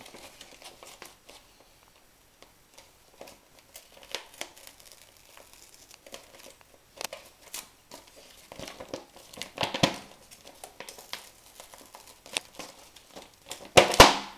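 Laminated poster and plastic laminating film being handled and flexed: irregular crinkling and crackling of the plastic sheet, with louder rustles about two-thirds of the way through and again near the end.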